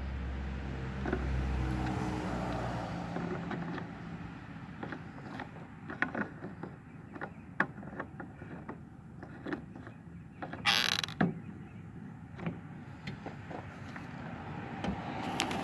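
Hand work on a chainsaw and its parts: scattered clicks, knocks and creaks of tools and plastic parts being handled, with a short scraping rustle about eleven seconds in. A low hum fades out in the first few seconds.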